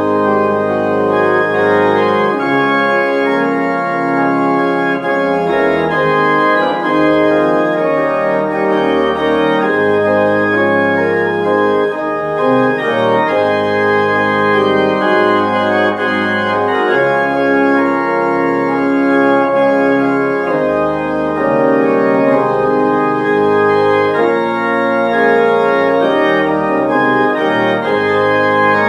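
Organ playing a postlude of sustained chords over a bass line that moves every second or two, without a break.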